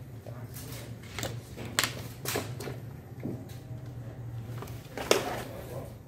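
Plastic clicks and knocks from a Vogel pocket tape measure in a hard plastic case being handled and fitted into its plastic blister packaging. There are a few sharp clicks, the loudest about five seconds in, over a steady low hum.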